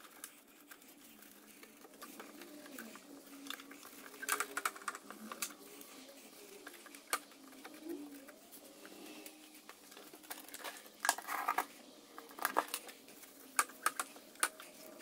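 A disinfectant wipe rubbing and scrubbing over the plastic base of a SNOO bassinet, with rustles, scrapes and light clicks in short scattered bursts, loudest about four seconds in and again about eleven seconds in.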